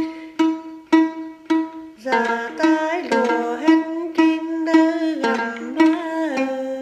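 Đàn tính, the long-necked gourd lute of Then music, plucked in an even pulse of about two notes a second. About two seconds in the playing grows busier and a gliding sung line joins it.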